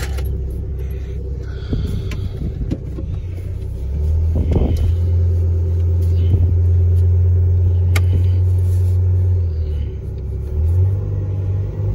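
Pickup truck engine running, a low rumble heard from inside the cab. It grows louder about four seconds in and holds for several seconds, drops back briefly, then picks up again near the end, with a single sharp click in the middle.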